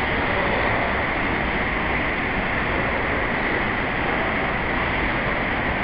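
Steady, even rumble and hiss of an underground subway platform, with no single event standing out.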